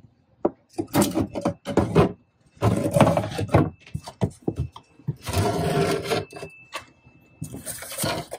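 Plywood cabin floor panels being lifted and slid aside: wood scraping on wood in four rough bursts, each about a second long.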